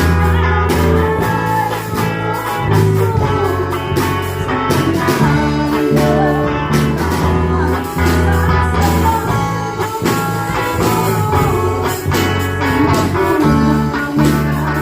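Worship band music with a drum kit keeping a steady beat under bass and guitar, and a voice singing.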